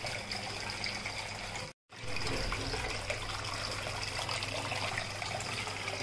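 Water falling and trickling steadily down the tiers of a small cement tabletop fountain into its pebble basin. The sound cuts out completely for a moment just before two seconds in, then resumes.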